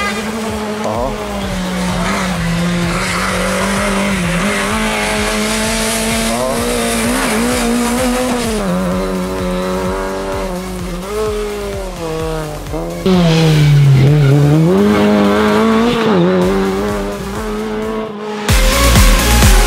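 Lada 2101 rally car's four-cylinder engine at high revs on a stage, its pitch rising and falling with throttle and gear changes, with one deep drop in revs about two-thirds through. Electronic dance music comes in near the end.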